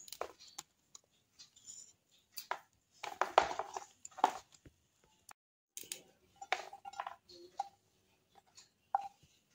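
Hands pulling leaves off fleshy pirandai (veld grape) stems and cutting the stems with a knife on a woven tray: scattered snaps, clicks and rustles, busiest about three seconds in.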